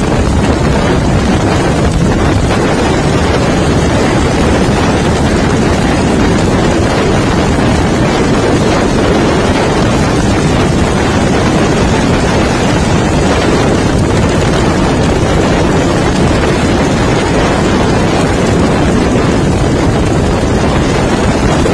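Motorcycle riding at speed: a loud, steady rush of wind on the microphone over the running engine.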